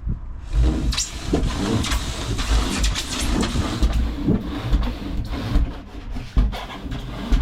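Insulation saw cutting through insulation board in a run of uneven strokes, over a low rumble.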